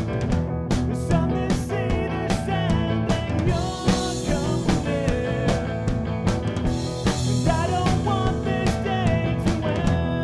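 Background rock music with a steady drum beat and electric guitar.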